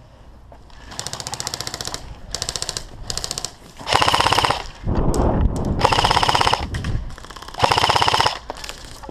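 Airsoft guns firing on full auto in rapid bursts of evenly spaced shots, about six bursts, with the loudest ones about four, six and eight seconds in.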